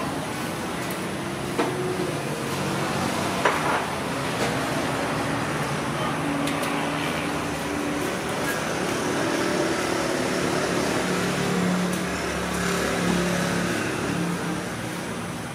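Steady motor hum over background noise, like a vehicle engine running nearby, with the hum strengthening in the second half; a few faint light clicks about one and a half and three and a half seconds in.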